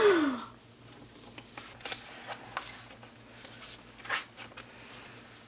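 Photo cards and paper album inclusions being handled: scattered light taps and soft rustles, one clearer tap about four seconds in. A short falling vocal sound, like a sigh, comes at the very start.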